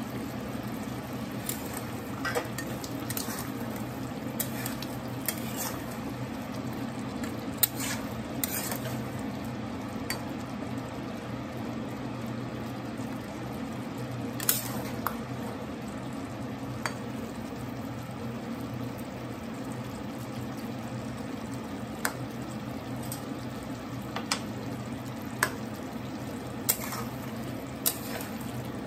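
Potato slices and drumstick pieces frying in masala in a kadai, sizzling steadily while a metal spatula stirs them, with irregular sharp clinks and scrapes of the spatula against the pan.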